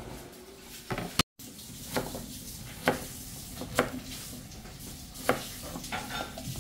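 Kitchen knife chopping peeled turnip on a plastic cutting board: sharp single chops roughly a second apart, five or so in all. Underneath runs a steady sizzle of onions and tomatoes frying in oil in a pot.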